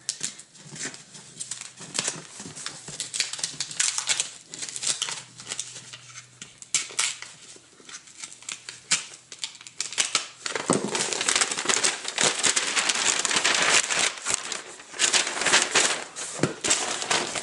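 Taped-up paper mailer envelope being opened by hand: scattered rustles, scrapes and crinkles of paper and tape, then from about ten seconds in a longer, louder stretch of rustling and sliding as the bagged comic is worked out of the envelope.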